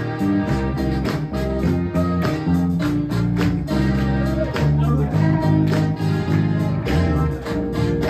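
Live gospel band playing an upbeat instrumental passage with a steady beat and a moving bass line, between the choir's sung lines.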